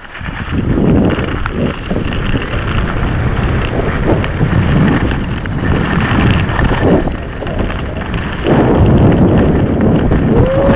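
Wind buffeting a camera microphone carried by a skier going downhill at speed, with the hiss and scrape of skis on packed snow. It comes up suddenly as the run starts and stays loud and rough, surging and easing.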